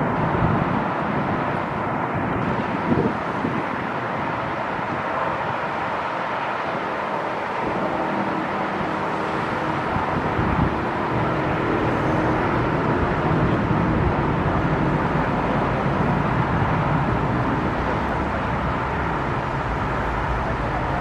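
Boeing 737-800's CFM56-7B turbofan engines heard from a distance as the airliner lands: a steady jet rumble that grows a little louder in the second half, after touchdown.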